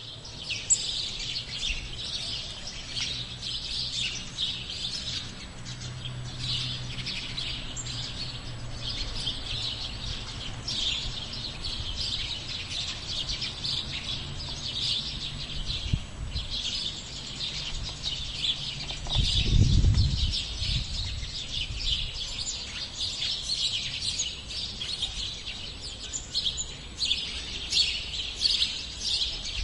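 Sparrows chirping and chattering nonstop, many short calls overlapping. A brief low rumble comes about twenty seconds in.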